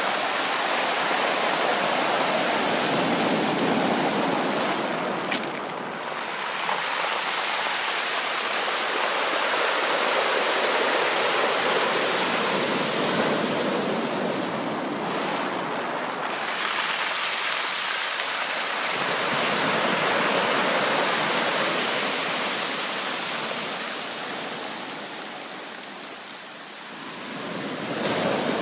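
Ocean waves washing onto a beach: a continuous rushing wash that swells and recedes slowly, easing off near the end and building again as the next wave comes in.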